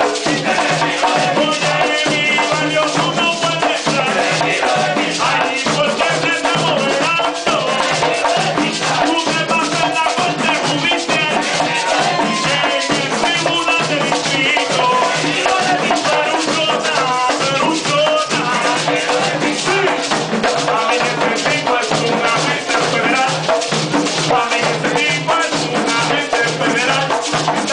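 Live Puerto Rican plena: a group of panderetas (hand frame drums) beating a steady driving rhythm, with metal güiro scraping and a lead voice singing over them.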